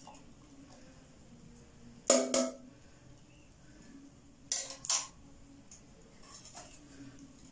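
Stainless steel cooking pans and utensils clanking against each other: two quick metal knocks about two seconds in, the first the loudest, then another pair about four and a half seconds in.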